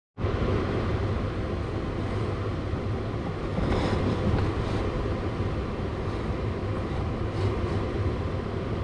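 Steady low mechanical hum with an even rushing noise underneath, unchanging throughout.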